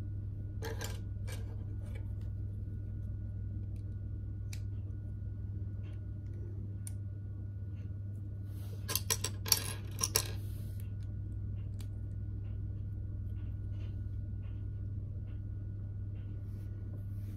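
Small plastic LEGO pieces clicking and clattering as they are handled and pressed together, with a short cluster of louder clicks about nine to ten seconds in. A steady low hum sits underneath.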